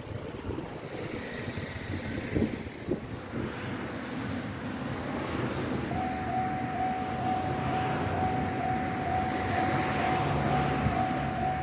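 Road vehicle noise, then about six seconds in a level crossing's electronic warning bell starts ringing: a single steady tone pulsing about twice a second. The crossing is signalling an approaching tram.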